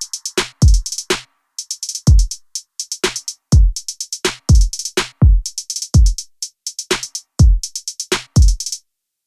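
Background music: an electronic drum-machine beat with deep, pitch-dropping kick drums and quick hi-hat ticks. It stops abruptly shortly before the end.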